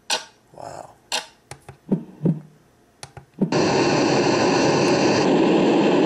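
White noise sound machine: a few short clicks and brief snatches of sound as its buttons are pressed, then about three and a half seconds in a loud, steady hiss of white noise starts from its speaker.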